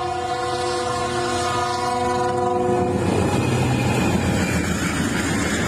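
Diesel passenger train's horn sounding one long blast that cuts off about halfway through, followed by the loud rumble and wheel clatter of the train running past.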